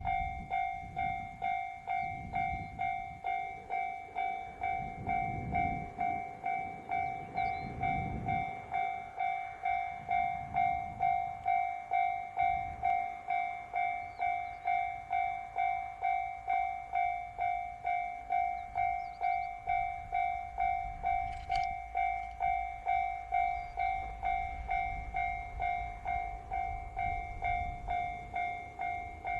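Railroad crossing warning alarm ringing steadily at about two dings a second. In the last several seconds a low rumble grows beneath it as the train approaches the crossing.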